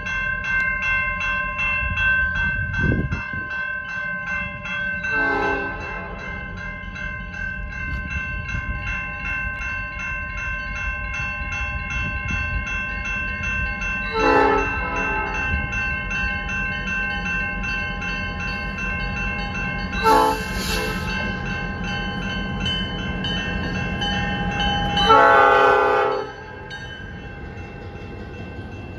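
Crossing bell ringing steadily at a railroad grade crossing while the air horn of an approaching EMD GP38-2 diesel locomotive sounds the grade-crossing signal: long, long, short, long. The last blast is the loudest and ends as the locomotive reaches the crossing, under a low rumble from the train.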